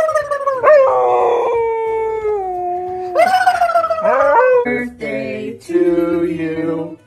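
A dog howling: a run of long howls, each starting high and sliding down in pitch. Near the end the howling gives way to singing.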